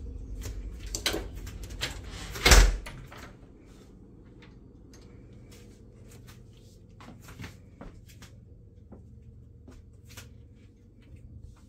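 Knocks and clicks of an interior door being handled, the loudest a heavy thump about two and a half seconds in, followed by scattered lighter taps and clicks over a faint steady low hum.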